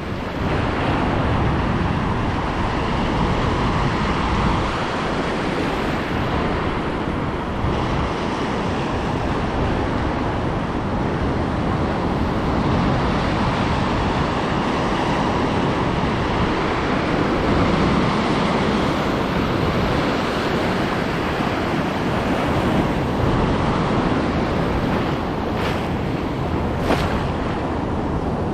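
Pacific surf washing steadily around a wader standing in the shallows, with wind buffeting the microphone. Near the end there are two brief sharp clicks.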